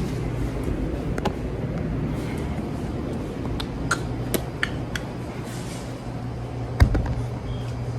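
A steady low machine hum with scattered sharp clicks and clinks, and one louder knock near the end.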